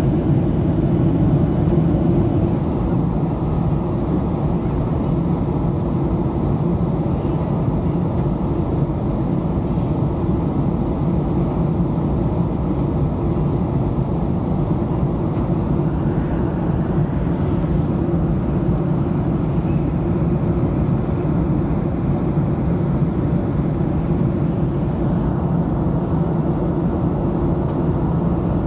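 Steady cabin noise of a Boeing 737-800 descending to land, heard from a window seat: an even low rumble of engines and rushing air.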